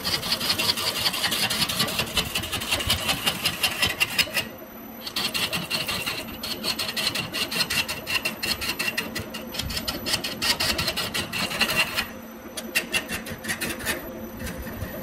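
Turning tool cutting a spinning bamboo blank on a wood lathe: a dense, rapid rasping chatter as shavings come off. It breaks off twice, about four seconds in and again near twelve seconds, then resumes, over a steady low hum from the lathe.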